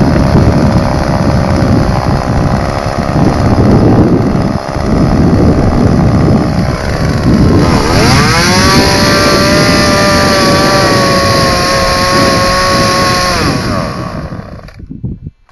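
Two-stroke chainsaw running at high throttle, unsteady at first, then about halfway rising to a steady high whine that falls away, and the engine stops suddenly near the end.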